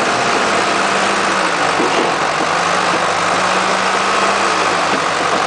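Backhoe loader's diesel engine running steadily as the machine works its front bucket through mud and runoff.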